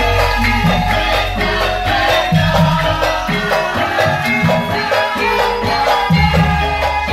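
Javanese gamelan music for a topeng lengger masked dance, with a lively repeating melody of pitched notes over drum and low bass.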